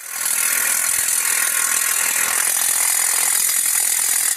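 DeWalt 20-volt cordless impact wrench hammering, driving down the new front spindle nut on an F150 wheel hub. It runs steadily for about four seconds and cuts off suddenly.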